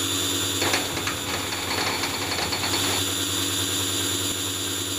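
Water-cooled 2.2 kW three-phase CNC router spindle motor running at speed with a steady high-pitched whine and overtones. A couple of faint knocks come through, about a second in and again near the middle.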